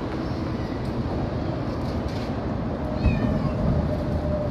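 Stray cats meowing, one clear meow with a falling pitch about three seconds in, over a steady background noise.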